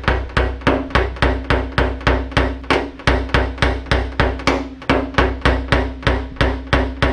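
Small hammer tapping a knockdown tool against a car's roof panel in rapid, even taps, about four a second, with a steady low hum beneath. This is the tap-down step of paintless dent removal, flattening the metal around the dent.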